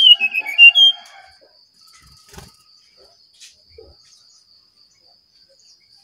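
Brown-chested jungle flycatcher singing one short phrase of clear whistled notes in the first second: they slide down and then step back up. After it come a faint, steady high-pitched hum and a few soft clicks.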